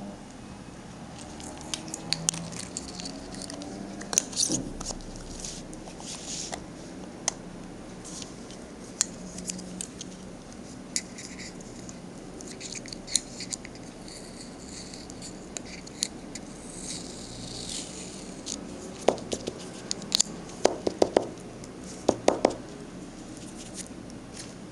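Handling of a plastic cosmetic jar: scattered small clicks and taps as its lid is twisted and its sifter pressed, with a few soft brushing swishes and a quick run of louder clicks near the end.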